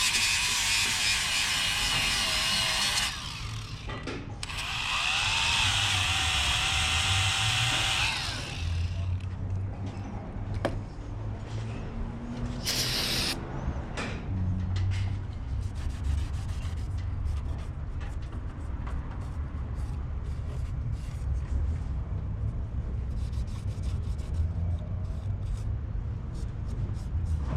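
A power tool runs in two spells of about three seconds each, its whine wavering in pitch as it drives fasteners. After that come scattered clicks and clinks of hand tools and parts over a low hum.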